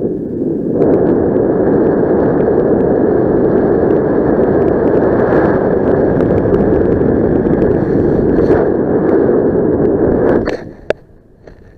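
Wind rushing and buffeting over a helmet camera's microphone in flight under a paraglider, loud and steady. It drops away sharply about ten and a half seconds in, followed by a single sharp click.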